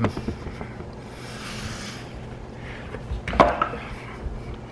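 Stainless-steel kitchen tongs clacking and knocking against a wooden cutting board and the sliced steak, with the sharpest clack a little past the middle.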